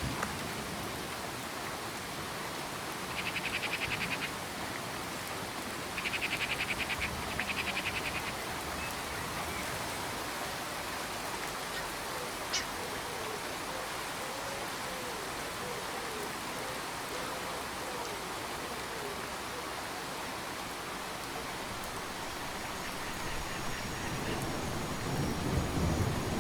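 Steady rain falling, with a bird's short rapid trills about three seconds in and again about six seconds in.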